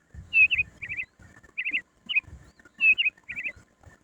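A small bird chirping in quick clusters of two or three high notes, repeated about every half second.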